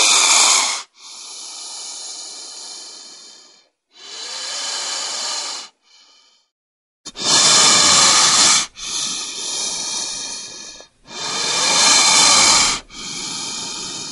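Bull snake hissing in a series of breathy blasts with short pauses between them. Loud, short hisses alternate with softer, longer ones.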